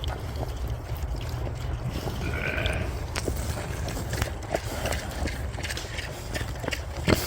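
A sheep bleats once, briefly, about two and a half seconds in. Under it runs a steady low rumble with scattered light clicks and knocks, and a sharper knock comes near the end.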